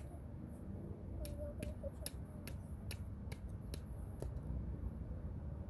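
A hammer tapping lightly and repeatedly on a rock, a regular series of short sharp clicks about two or three a second, starting about a second in and stopping shortly after four seconds.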